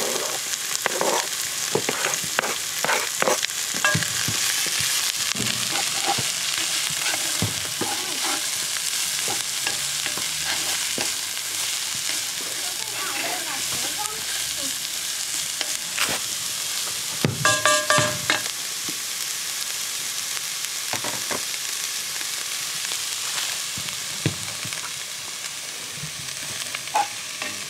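Chopped onions frying in butter in a cast-iron Dutch pot over charcoal, sizzling steadily while a wooden spoon stirs and scrapes them, with a short ringing clatter about two-thirds of the way through.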